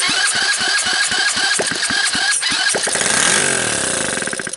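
A 125cc four-stroke ATV engine with no carburetor, test-fired on starting fluid, catches at once and fires unevenly for a couple of seconds. It then speeds up in a rising note and cuts out abruptly at the very end.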